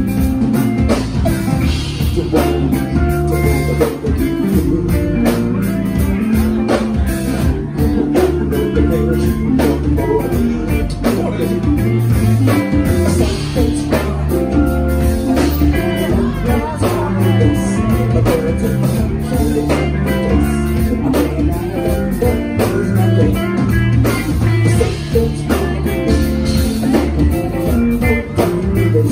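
A live band playing: electric guitar and drum kit, with a male singer at the microphone.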